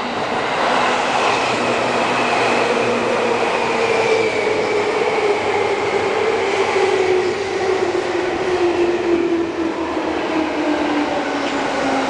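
Seibu 2000-series electric train passing close by, its wheels and motors running with a steady whine that slowly falls in pitch.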